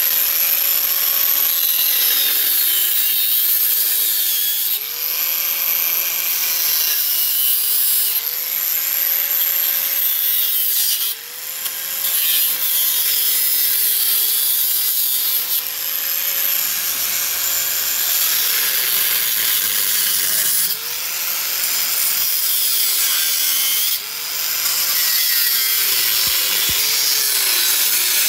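Handheld angle grinder with a cutting disc cutting through a metal bicycle frame, a continuous grinding hiss over the motor's whine. The whine sags each time the disc bites into the metal and then recovers, with a few brief let-ups.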